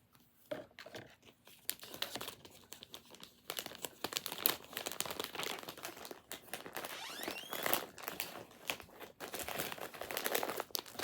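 Blind-box packaging being handled: a dense, irregular run of crinkling and crackling that starts about half a second in.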